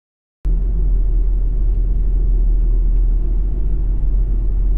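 Toyota Crown driving at a steady speed on studless winter tyres: an even, low rumble of road and tyre noise that begins abruptly about half a second in.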